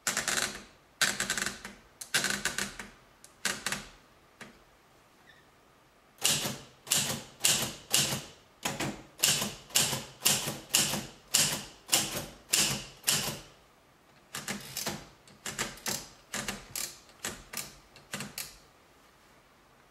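Alpina manual typewriter being typed on: sharp clacks of the keys striking. They come in quick clusters at first, then as an even run of about two a second, then in clusters again before stopping near the end.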